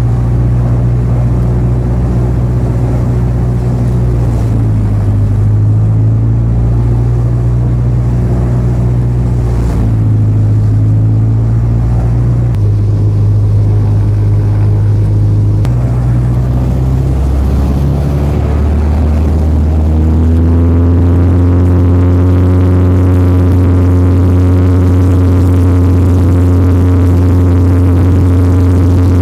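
Freshly overhauled Lycoming O-360 four-cylinder engine of an Aviat Husky running with the propeller turning, heard from inside the cockpit. Its speed shifts in several steps, then settles to a steady, slightly louder run about two-thirds of the way in.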